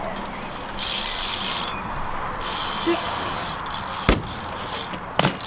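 BMX bike rolling across skatepark tarmac with a tyre hiss that swells and fades, then two sharp knocks about four and five seconds in as the bike meets the ramp.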